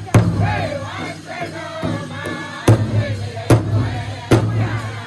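Powwow drum group singing in high voices around a large shared hand drum, the singers striking it together in heavy unison beats. After the first beat the drum drops out for about two and a half seconds while the singing carries on, then the beats return about one a second.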